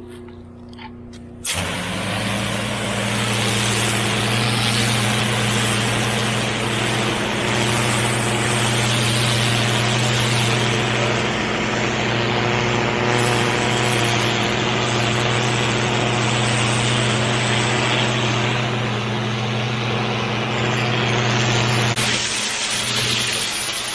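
Pressure washer in use: about a second and a half in, a loud steady hiss of the high-pressure water jet starts abruptly over the machine's steady engine hum, and it holds steady until it changes near the end.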